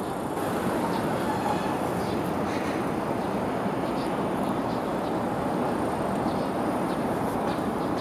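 Toden Arakawa Line tram approaching in the distance: a steady running rumble, with the level rising a little just after the start.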